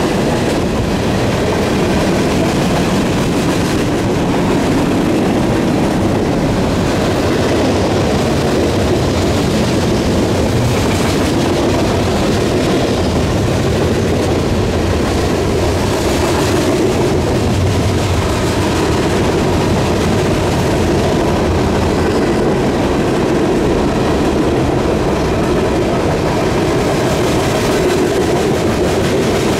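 Freight cars of a passing CSX manifest train (tank cars, centerbeam lumber flatcars and covered hoppers) rolling by on steel wheels: a steady, even rumble of wheels on rail.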